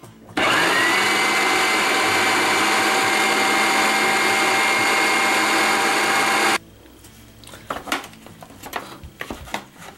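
Food processor motor spinning up to speed and running steadily as it grinds a damp mix of almonds, sunflower seeds, cashews and garlic, then cut off abruptly after about six seconds. After that, a wooden spatula scrapes and knocks in the plastic bowl.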